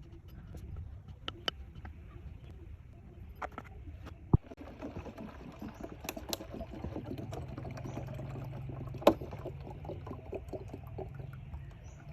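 Water being handled: splashing and trickling, with scattered small clicks and two sharp knocks, about four and nine seconds in.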